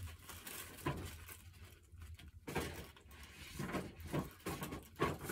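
Light rustling and a few soft knocks from things being handled, with a quieter pause in the middle.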